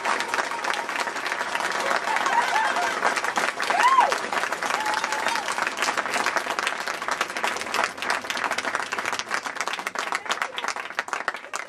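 Outdoor crowd applauding, dense clapping with voices calling out among it, easing off a little near the end.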